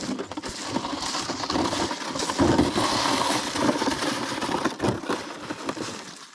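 Dense crunching and scraping on granular, frozen ice crust as a person walks across it beside a plastic sled. The sound builds over the first couple of seconds and fades near the end.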